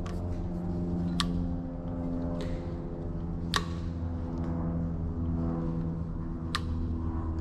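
Background music: sustained chords that change every couple of seconds, with a sharp percussive hit about every 1.2 seconds.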